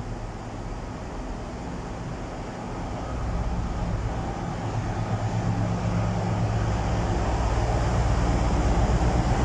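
Deep diesel engine sound growing steadily louder from about three seconds in as a Class 60 diesel freight locomotive approaches, over the steady idle of a Class 170 Turbostar diesel multiple unit's underfloor engines.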